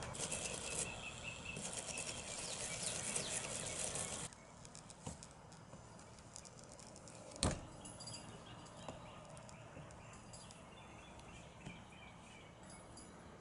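Soldering iron on a stained-glass frame joint, the flux and solder sizzling with a faint crackle for about four seconds, then stopping abruptly. A single sharp click follows a few seconds later.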